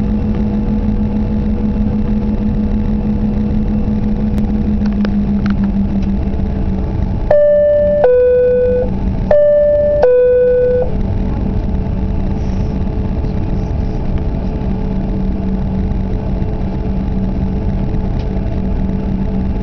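Steady cabin drone of a Canadair CRJ's rear-mounted GE CF34 turbofans while the jet taxis. About seven seconds in, a two-tone high-low cabin chime sounds twice in a row.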